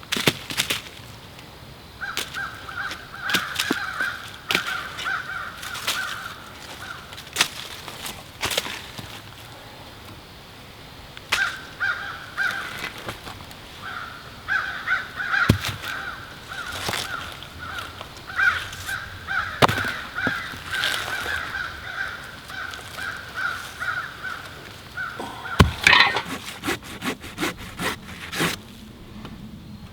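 Dry wood being broken and sawn by hand: sharp snaps scattered throughout, with two long stretches of rapid rasping strokes and a quick run of cracks near the end.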